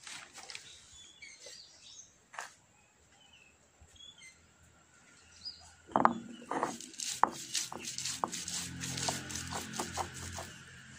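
Faint bird chirps. About six seconds in, a stone roller knocks onto a stone grinding slab and starts crushing split red lentils: a run of crunching clicks and stone-on-stone scraping with a low rumble.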